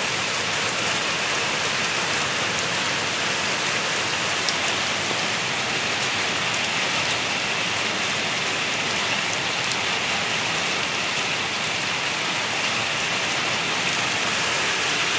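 Heavy rain falling steadily onto a river's surface and a corrugated metal roof overhead, with a few scattered louder drop ticks.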